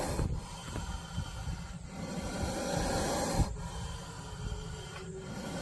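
Snake hissing: a run of long, breath-like hisses, each about a second and a half, with short breaks between them.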